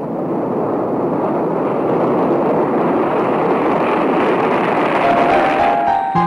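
Jet aircraft engines running, a steady rushing roar that grows a little louder toward the end, then fades as music comes in.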